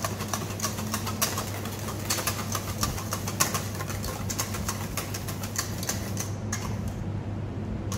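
Wire whisk beating thickened sabayon in a stainless steel bowl: rapid clicking and scraping of the wires against the metal, thinning out near the end.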